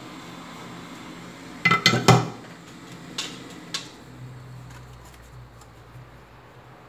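Steady hiss of a hot air rework gun, then a quick clatter of hard tools being set down on the work mat, followed by two lighter clinks.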